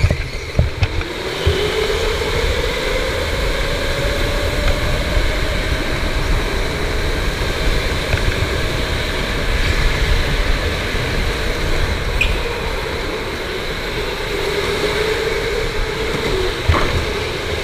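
Electric go-kart motor whining as the kart accelerates, its pitch climbing steadily, dipping briefly about three-quarters of the way through, then rising again, over a steady rumble of tyres and wind. A few sharp knocks come in the first second.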